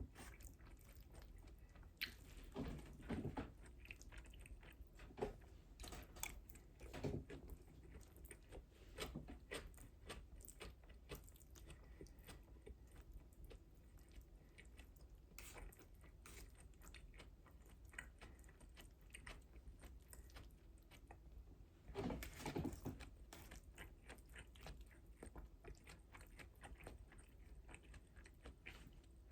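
A person munching food close to the microphone: quiet, irregular chewing and biting with short mouth clicks, louder for a few seconds about two seconds in, again around six to seven seconds, and around twenty-two seconds.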